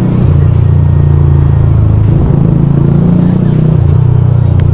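Yamaha YZF-R125's single-cylinder four-stroke engine running while the bike is ridden in slow traffic. The engine note shifts in pitch about a quarter second in and again near the end.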